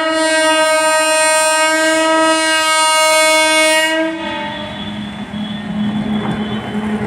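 Indian Railways locomotive horn sounding one long, steady blast that cuts off about four seconds in. After it the rumble of the approaching train grows, with a steady low hum from the locomotive.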